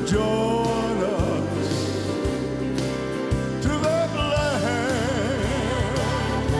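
A man sings a slow gospel song with a wide vibrato, accompanied by piano and other instruments.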